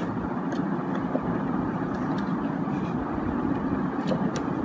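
Steady background rumble and hiss, with a few faint light ticks.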